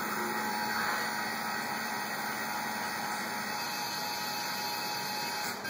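Servo motor and ballscrew of a CNC-converted Sharp milling machine driving an axis toward its home position during the homing cycle: a steady mechanical whine over a low hum, cutting off near the end as the axis reaches home.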